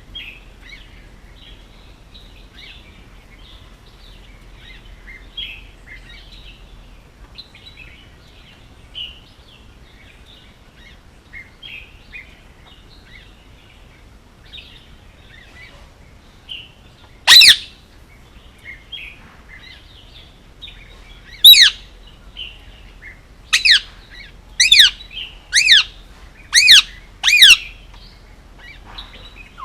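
Male Indian ringneck parakeet chirping softly, then giving loud, sharp calls that fall in pitch: one about halfway through, another a few seconds later, and a run of about five, roughly one a second, near the end.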